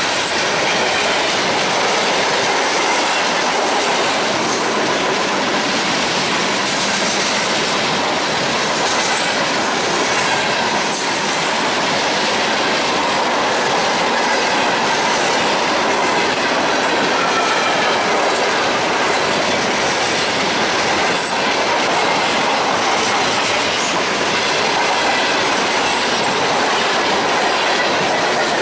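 Freight cars of a mixed freight train rolling past close by: a steady, loud rush of steel wheels on the rails that holds at the same level throughout.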